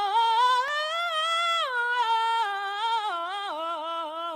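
A woman singing solo without accompaniment, one voice sliding between held notes: it climbs at first, then steps down lower twice.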